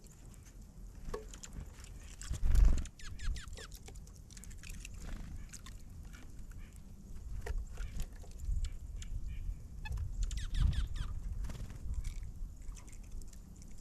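Wild birds feeding: scattered quick clicks and scratching, with a few short chirps about three seconds in and again later. A brief, loud, low thump comes about two and a half seconds in.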